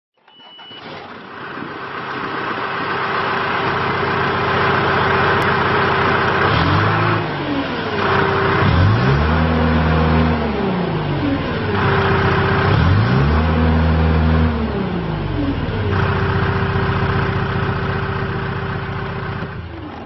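John Deere 310G backhoe loader's four-cylinder diesel engine, heard from the operator's seat. It idles, gets a short throttle blip, then is revved twice up to about 2400 rpm, each time held a couple of seconds. It drops back to a steady idle around 900 rpm.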